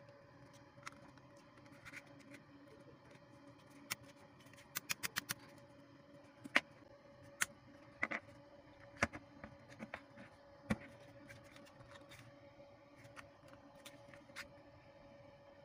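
Plastic clicks and knocks of a cordless drill's battery-pack housing being handled and fitted together. There are scattered sharp clicks, with a quick run of about six near five seconds in, over a faint steady hum.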